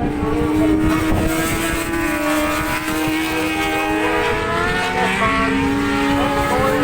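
Several racing motorcycles passing on the track, their engines' pitch gliding as they go by and shift gear, with one note dropping about five seconds in. Wind buffets the microphone underneath.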